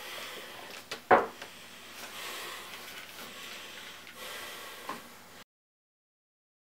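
Faint room noise with a few soft clicks and one short, sharp sound about a second in, the loudest moment; the sound cuts off suddenly a little past the middle.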